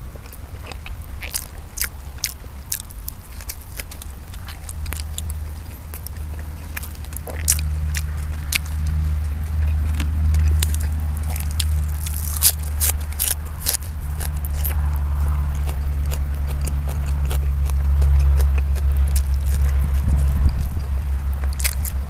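Close-miked eating: biting and chewing, with many short crunchy bites and wet mouth clicks. A steady low hum runs underneath from about five seconds in.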